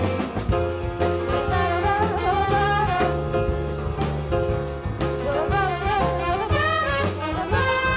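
A jazz band playing with a woman singing into a microphone over double bass, piano and drums, with saxophone and trumpet in the arrangement.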